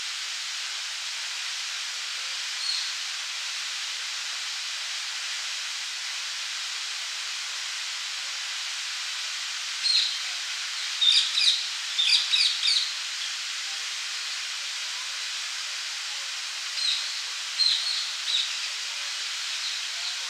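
Fountain jet splashing down into its basin, a steady hiss of falling water. Birds chirp over it briefly about ten seconds in and again near the end.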